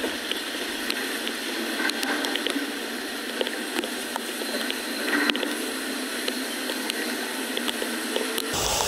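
Hands splashing and rummaging in shallow, muddy floodwater while pulling debris from a clogged drain culvert, with water gurgling over a steady hiss and scattered light ticks. Near the end the sound switches abruptly to a louder, deeper rush.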